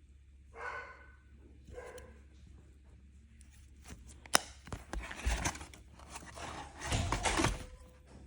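A dog barks twice, briefly, in the first two seconds; later comes a sharp click and two spells of rustling, handling noise.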